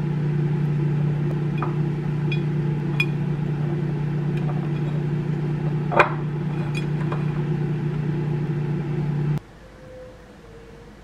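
A steady machine hum that cuts off abruptly near the end. Over it, a silicone spatula clinks and scrapes against a ceramic plate a few times as fried rice is served onto it, with the sharpest clink about six seconds in.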